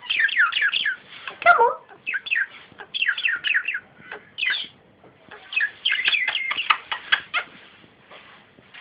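Pet budgerigar chattering and warbling in quick runs of short falling chirps, with brief pauses between runs. It trails off near the end.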